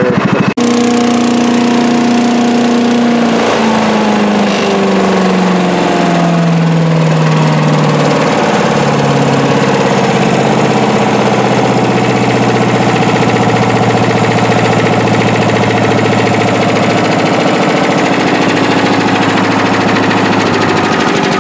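Small single-cylinder gas engine driving a tow-behind leaf vacuum's impeller. It runs fast, slows over several seconds, then settles at a steady lower speed.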